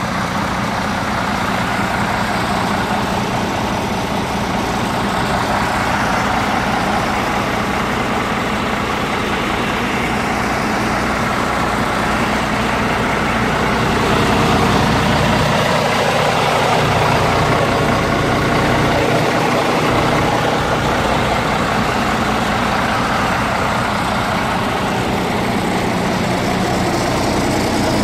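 MAN 19.463 truck's straight-six diesel idling steadily, slightly louder about halfway through.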